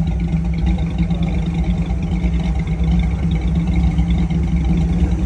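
Ford 302 small-block V8, swapped into a Geo Tracker, idling steadily with a deep, even rumble.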